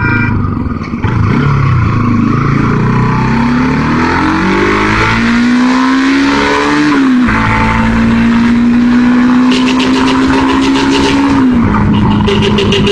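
Motorcycle engine heard from the rider's seat, pulling away and accelerating: its pitch rises for a few seconds, drops with an upshift about seven seconds in, holds steady, then drops again with another upshift near the end.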